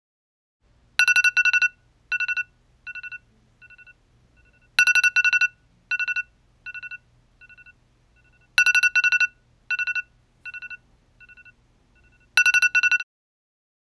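A smartphone tone going off. It plays a pair of loud electronic notes followed by fading echo-like repeats, and the pattern comes round four times, about every four seconds, before cutting off suddenly near the end.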